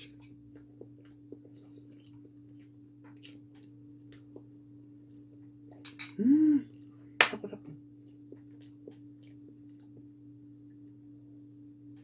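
Quiet chewing of soft cake with small clicks of a metal spoon against a ceramic bowl, over a steady electrical hum. About six seconds in there is a short vocal noise that rises and falls in pitch, followed by one sharp clink as the bowl and spoon are set down on the table.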